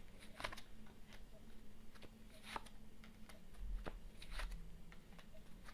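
Tarot cards being handled and laid down: a few soft, scattered card taps and rustles.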